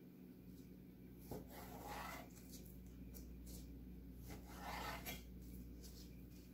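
Faint strokes of a knife slicing raw beef into strips on a wooden cutting board, soft scraping with light taps of the blade on the wood; the two longest strokes come about a second and a half in and near five seconds.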